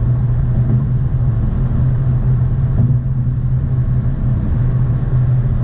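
Car cruising at highway speed, heard inside the cabin: a steady low drone of engine and tyre noise on the road.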